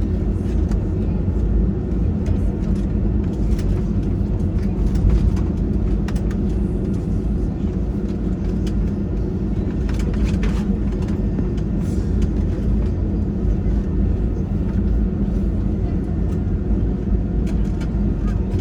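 Steady low rumble inside the passenger cabin of an Airbus A320-216 airliner, with light clicks and rattles here and there.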